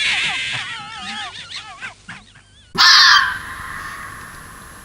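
Red fox calling: a run of high, wavering yelps over the first two seconds, then about three seconds in a short, loud, harsh scream.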